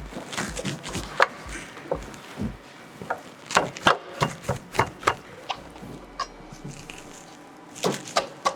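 Motorcycle rear axle being pushed back through the wheel hub, spacers and swingarm: a run of sharp clicks and knocks, heaviest in the middle, then a lull, and a few more knocks near the end.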